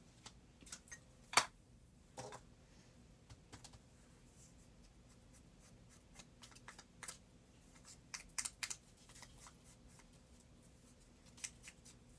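Scattered light taps and clicks of ink-distressing tools: a Distress Ink pad is opened with one sharp click about a second and a half in, then a foam ink blending tool is dabbed on the pad and paper, with a small cluster of taps near the end.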